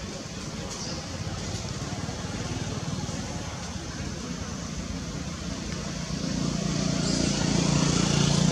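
Steady outdoor background noise, with the drone of a motor vehicle's engine growing louder over the last couple of seconds.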